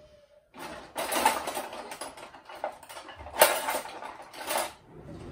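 Rummaging through a kitchen drawer of metal utensils, cutlery clattering and rattling on and off, with louder clinks near the middle and toward the end.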